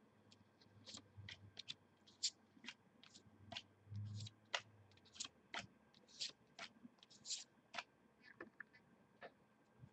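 Football trading cards being handled and flipped through: faint, irregular clicks and snaps of card stock, about one or two a second.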